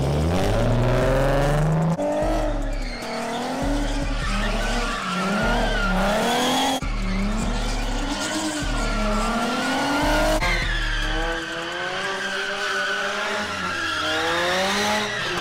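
A car drifting. Its engine revs hard, then its pitch rises and falls over and over, about every second and a half, as the throttle is worked through the slide. Tyres squeal and skid underneath.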